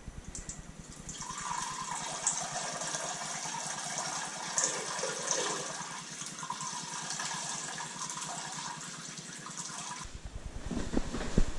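Water running with a steady rushing sound, which stops about ten seconds in.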